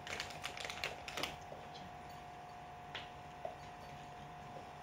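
Faint clicks and crinkles of a small packet being handled: a quick flurry in the first second or so, then a couple of single clicks, over a faint steady hum.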